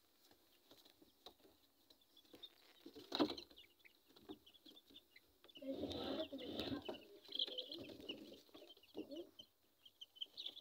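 Young Fayoumi chickens in a coop, peeping and clucking with many short high chirps. A sharp knock comes about three seconds in, and a louder stretch of sound comes about six seconds in.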